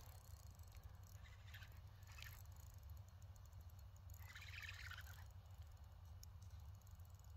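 Near silence: a steady low hum with a few faint, brief rustling sounds, the clearest about halfway through.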